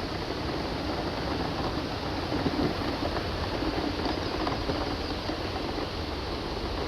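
Steady rushing of a waterfall close by, an even, unbroken noise with no separate sounds standing out.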